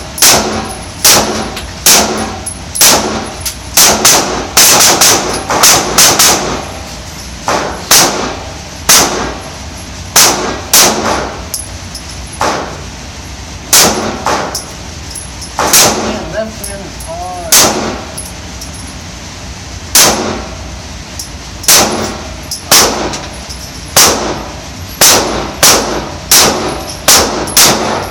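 Repeated 9mm pistol shots, dozens of them at an irregular pace, often in quick pairs, each ringing out with an echo.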